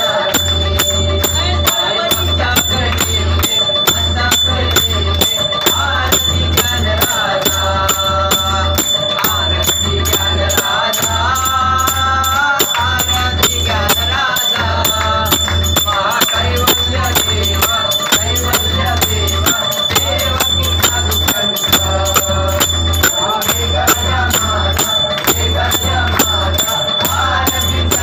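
Hindu devotional aarti song, sung melody over a fast, steady beat, with hands clapping along in time.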